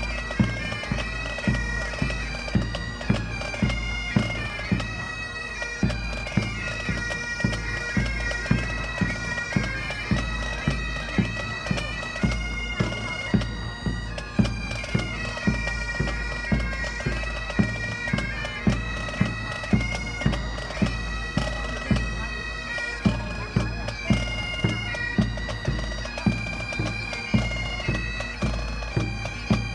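Pipe band playing a marching tune: bagpipes sound a stepping melody over their steady drone, with drums beating an even, regular time throughout.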